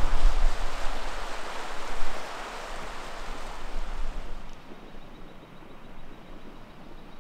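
Firehole River in flood, its high water rushing over rapids, with wind buffeting the microphone. About two seconds in this gives way to a softer, steady hiss.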